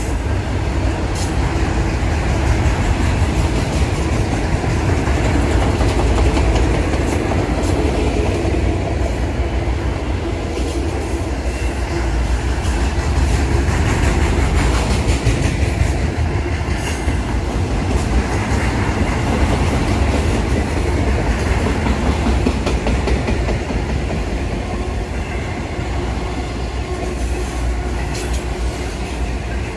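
Enclosed autorack cars of a freight train rolling past at close range: a steady, loud rumble of steel wheels on rail with scattered light clicks.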